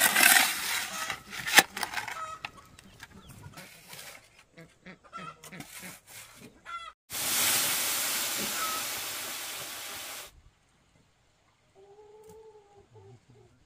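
A metal shovel scraping and knocking against the sandy floor of a brick-lined pit, then a few seconds of steady scraping that stops suddenly about ten seconds in. Hens cluck in the gaps, with one short call near the end.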